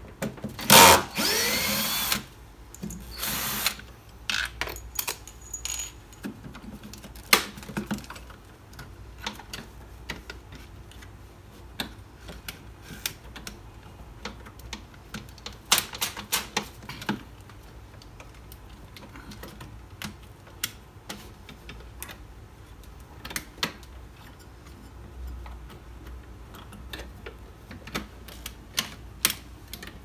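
Cordless drill-driver whining up in two short runs near the start as it backs out the screws holding the washing machine's drain motor. After that come scattered clicks and knocks of screws and plastic parts being handled.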